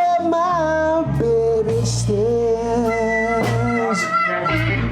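Live blues band playing a slow blues in B flat: electric guitar, bass and drums, with a lead line of long held, bending notes over the top.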